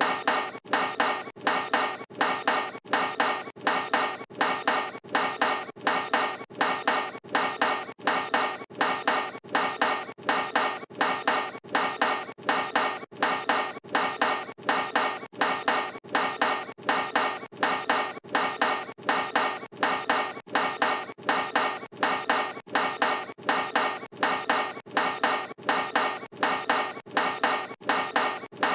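A basketball clanking off a metal hoop rim, the ringing 'brick' of a missed shot, repeated over and over in quick, even succession, each clank ringing briefly.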